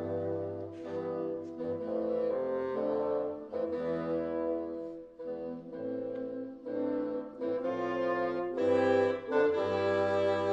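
Slow meditative healing music in the Chinese shang (商) mode. Held chords over a steady low bass note change every second or so, and the music grows louder near the end.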